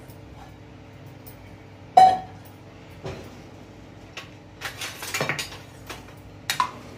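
Steel bowl knocking against a metal kadhai as dal is tipped out of it: a sharp ringing clink about two seconds in, a few lighter clatters, then another ringing clink near the end.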